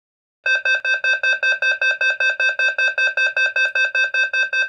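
Simplex fire alarm speaker (2902-9712 on a 4903-9101 strobe plate) sounding its voice-evacuation alert tone: a rapid, even train of electronic beeps, about six or seven a second, starting about half a second in. It is the attention tone that comes before the recorded evacuation message.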